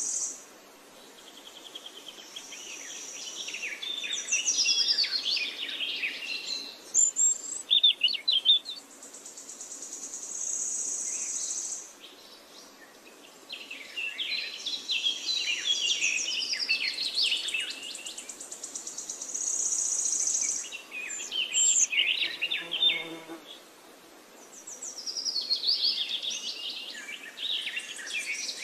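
Vegetable fritters deep-frying in hot oil in a wok: a high-pitched sizzle with dense crackling that swells and fades in waves, with a few brief lulls.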